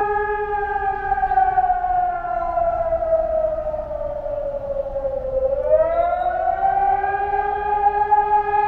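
Civil-defence air raid siren sounding the air raid alert. It holds a steady, high wailing tone, then slides down in pitch for about four seconds and climbs back up to the same steady tone within about two seconds.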